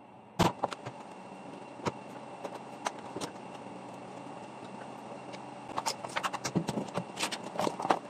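Clicks and knocks of plastic washing-machine parts being handled: one sharp knock about half a second in, scattered clicks, then a busy run of quick clicks and knocks near the end as the control panel and top cover are moved.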